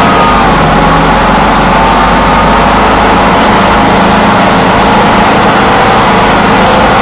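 Engine of an airsoft tank vehicle running steadily as it drives, loud and close to the gun-mounted camera.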